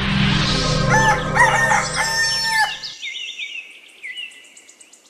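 A rooster crowing once, over a low steady drone that stops about three seconds in, followed by small birds chirping in short falling notes.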